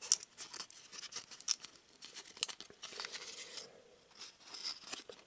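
Glossy trading cards being slid and peeled apart by hand: a string of small snaps and papery scrapes, with a longer scrape around the middle. These 1994 cards tend to stick together.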